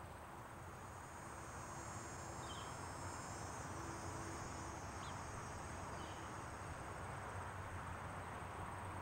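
Outdoor summer ambience of trilling insects, crickets or similar, steady and high-pitched, with a few short faint chirps; it slowly grows louder.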